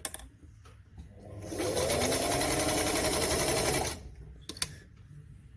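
Singer 348 sewing machine run by its electric motor for a short burst of stitching, about two seconds, speeding up and then slowing to a stop, during a test with the upper thread tension set low. A few sharp clicks come before and after the run.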